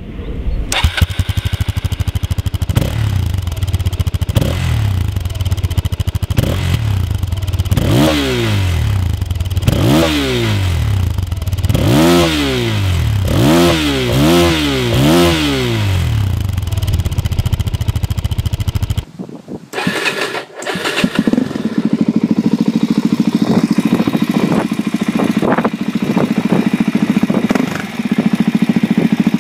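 Suzuki DR-Z400 single-cylinder engine idling through its stock exhaust, revved quickly several times in a row partway through. After a cut, a second DR-Z400 with a Yoshimura RS-2 slip-on silencer idles steadily.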